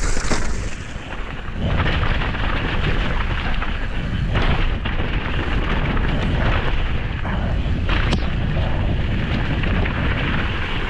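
Downhill mountain bike running fast over a rough dirt trail, heard from a camera mounted on the front of the bike: heavy wind buffeting and deep rumble on the microphone, with sharp knocks and rattles as the bike hits bumps, the loudest near the start, about four and a half and about eight seconds in.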